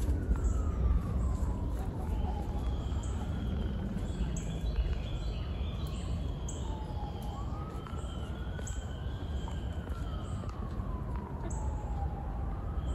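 An emergency-vehicle siren wailing, its pitch sliding slowly up and down over several seconds, twice in a row. Short high bird chirps repeat over it, with a steady low rumble underneath.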